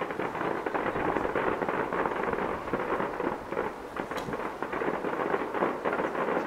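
Fireworks display: a dense, continuous run of crackling pops and small bursts, with one sharper crack about four seconds in.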